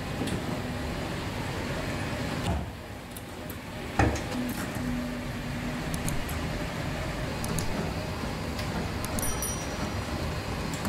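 Continuous noise of bread-factory machinery running, such as dough dividing and moulding machines, with one sharp knock about four seconds in.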